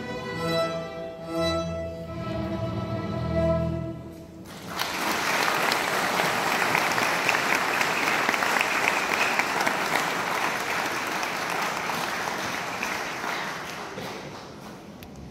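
A beginner student string orchestra plays its final held chords, which stop about four seconds in. Audience applause then breaks out and fades away near the end.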